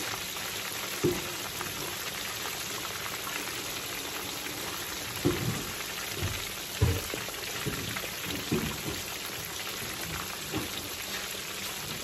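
Cornmeal-breaded fish deep-frying in a skillet of hot oil: a steady crackling sizzle, with a few brief soft knocks scattered through it.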